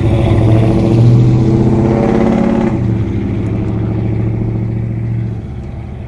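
A motor vehicle's engine running close by on the street, a steady pitched hum that is loudest in the first seconds and drops away near the end.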